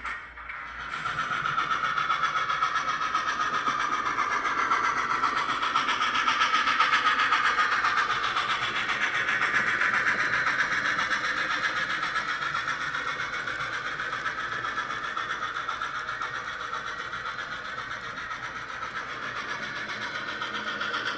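HO-scale steam locomotive sound decoder playing a rhythmic steam-exhaust chuff through the model's small speaker as the locomotive runs.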